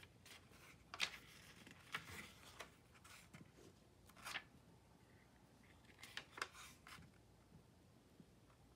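Faint rubbing and rustling of a glue stick swiped across paper while the sheet is lifted and handled, coming as a few short scattered strokes.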